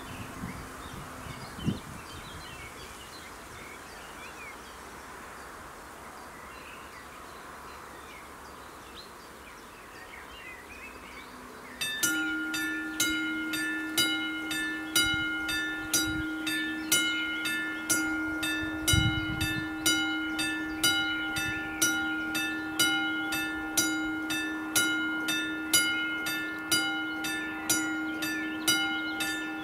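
Quiet outdoor background with insects buzzing for about the first twelve seconds. Then a level crossing warning bell starts, striking about once a second over a steady tone, as the crossing's warning signals activate for an approaching train.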